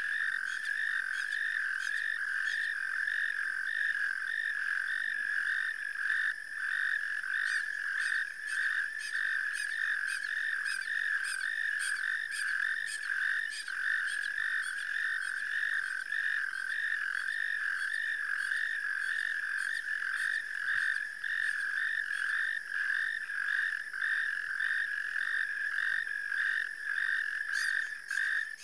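Chorus of many frogs calling together, a continuous high pulsing trill that holds steady throughout.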